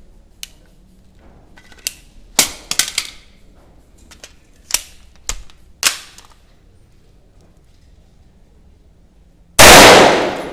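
Pistol being reloaded: a string of short, sharp clicks and clacks. Then, near the end, one very loud pistol shot with a ringing tail lasting about a second.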